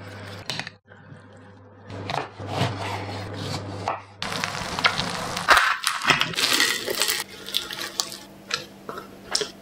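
Kitchen sounds in quick succession: a knife slicing through a lemon on a wooden chopping board, then a knife and fork cutting into a baked whole fish on a plate, with crisp crackles and cutlery clicks against the plate.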